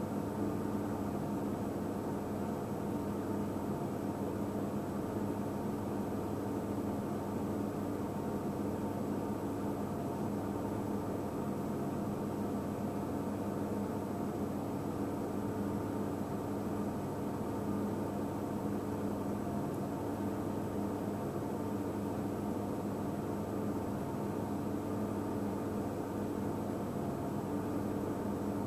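Steady mechanical hum with an even hiss, unchanging throughout, with several fixed tones in it.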